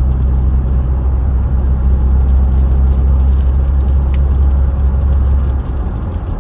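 Cab interior of a Dodge Ram 2500 pickup with a Cummins diesel, cruising. A steady low engine drone runs under even road noise and eases briefly near the end.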